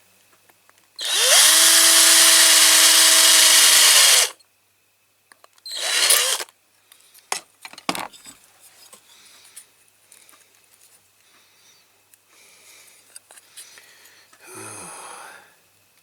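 Small power drill spinning up and running steadily for about three seconds while drilling into a diecast metal model's rivet post, then a second short burst a couple of seconds later. Light clicks and handling follow, with another brief drill burst near the end.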